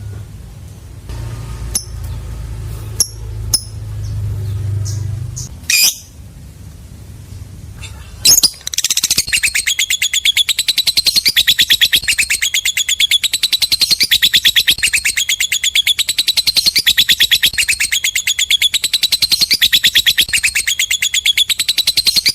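Lovebird singing its long 'ngekek' chatter: a rapid, even run of high chirps that starts about eight seconds in and goes on without a break. Before it come a few single sharp chirps and clicks over a low hum.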